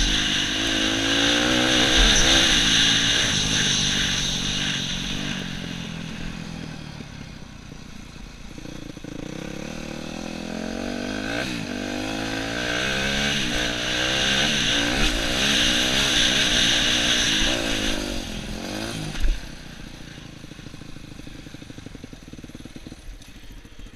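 Yamaha YZ250F four-stroke single-cylinder dirt bike engine under way on a trail, revs rising and falling repeatedly as the rider throttles and shifts, with wind rushing over the helmet microphone. Near the end there is a brief thump, and the engine drops back to a low, quieter idle as the bike stops.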